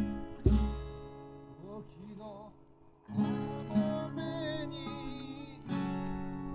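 Acoustic guitar strumming chords, with a voice singing long wavering notes over it. The music dips briefly about three seconds in, then comes back with a fresh strummed chord.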